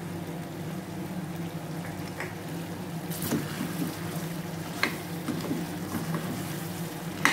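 A metal spoon stirring thick gravy as it simmers in a stainless steel kadai, clinking a few times against the pan, loudest near the end, over a steady low hum.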